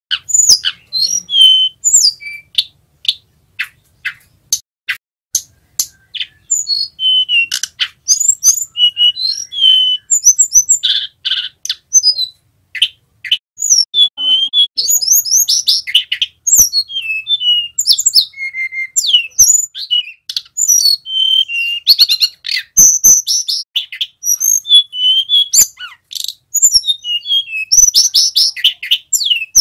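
Male hill blue flycatcher singing a fast, varied song of high chirps, whistled slurs and sharp clicking notes, sparse for the first few seconds and then nearly unbroken. It is a male still learning the rolling song (ngerol).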